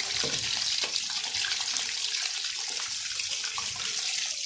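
Sliced marinated chicken, coated in corn flour, sizzling as it deep fries in hot oil: a steady high hiss with many small crackles.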